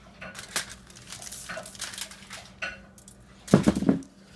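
Small bowls clinking and scraping as they are handled on a table, with a louder knock as a bowl is set down about three and a half seconds in.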